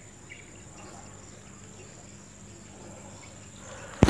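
Quiet outdoor background with a steady, high-pitched insect drone, like crickets, and one sharp click near the end.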